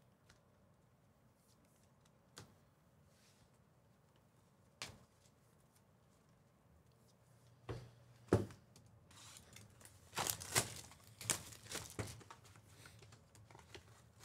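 Trading card packaging being torn open and crinkled. A few faint clicks come first, then two soft knocks about eight seconds in, then a run of tearing and crinkling.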